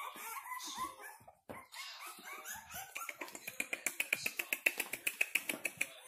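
A litter of young Frenchton puppies whining and yelping, many short high cries overlapping. About halfway through they turn into a fast string of sharp yips, about ten a second, the loudest part.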